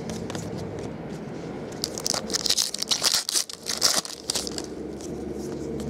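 Foil wrapper of a 2012 Bowman Draft baseball card pack being peeled open and crinkled, a dense burst of crinkling from about two seconds in that lasts a couple of seconds.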